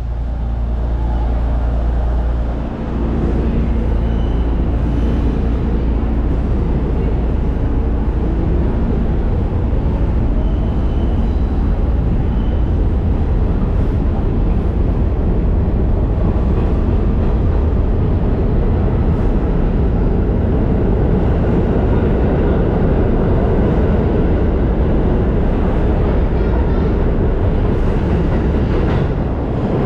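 A diesel subway work locomotive hums steadily for a couple of seconds. Then, from about three seconds in, a New York City Subway A train's cars run past the platform with a steady, loud rumble of wheels on rail, pulling away near the end.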